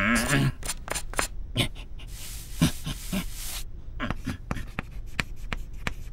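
Chalk scratching on a wall in quick short strokes, with one longer scribbling stroke about two seconds in.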